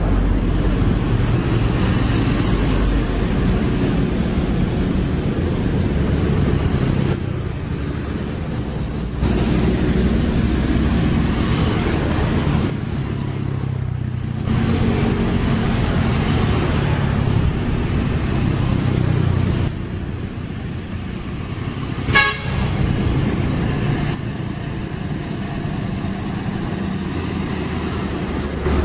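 Hino FM260TI truck's diesel engine running as it drives by, with road traffic noise. About three-quarters of the way through there is a single short horn toot.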